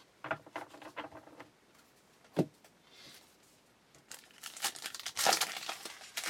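Trading-card pack wrapper being torn open and crinkled, loudest over the last two seconds, with a single sharp tap a little over two seconds in.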